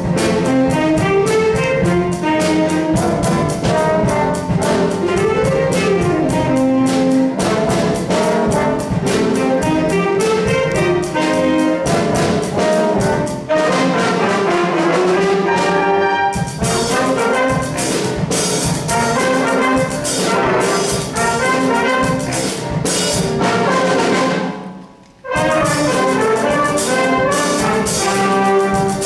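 Jazz big band playing: a saxophone section and brass (trumpets, trombones) over a drum kit. Near the end the whole band stops for a moment, then comes back in together.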